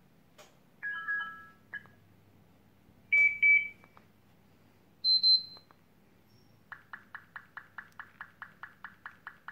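Cheap CPA Halo 15 feature phone's loudspeaker playing message-tone previews: three short electronic beep tones a second or two apart, each higher than the last, then from about two-thirds of the way in a fast run of identical beeps, about seven a second.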